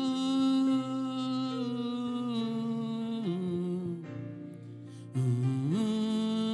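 Slow, sustained worship music: long held notes that slide smoothly from one pitch to the next, with a softer patch about four seconds in.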